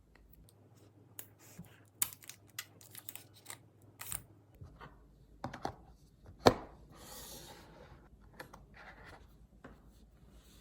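Hands handling packaging and accessories: scattered clicks and taps with short stretches of rustling and scraping, and one sharp click about six and a half seconds in, followed by a brief rustle.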